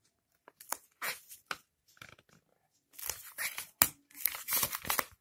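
Paper being torn and peeled away from a plastic debit card, with paper rustling. Sparse at first, then busier for the last two seconds, with a sharp click a little before the end.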